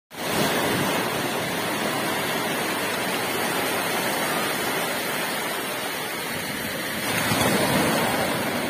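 Sea waves breaking and washing up over a sandy shore, a steady rush of surf that swells louder about seven seconds in.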